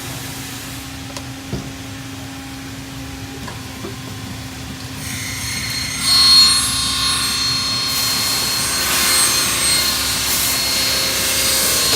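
Miter saw spinning up about five seconds in, then cutting through an aluminum pressure-bar extrusion with a steady high whine. The cut sounds clean, the part held square and still by the 3D-printed templates and clamps.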